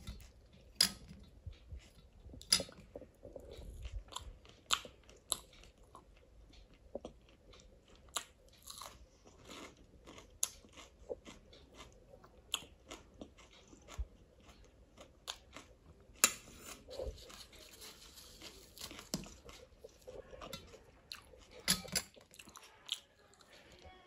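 Close-up mouth sounds of a person eating rice with chole and puri by hand: chewing with wet smacks and irregular sharp clicks. About two-thirds of the way in there are a couple of seconds of soft rustle.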